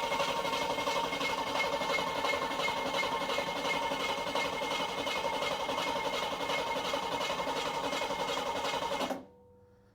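Rebuilt 350 small-block V8 turning over on its first start-up attempt, a steady, dense mechanical whir that stops abruptly about nine seconds in.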